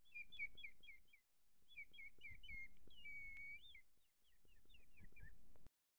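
Bird chirping in three quick runs of repeated notes, with one held whistled note in the middle run. It starts and cuts off abruptly, as a birdsong sound effect dropped onto silence.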